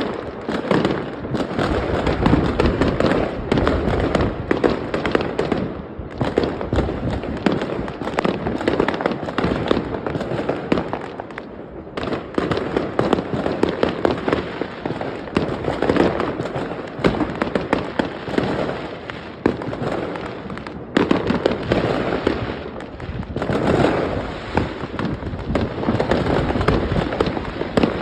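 Large fireworks display: a near-continuous barrage of bangs and crackling shells, easing off briefly three times before building again.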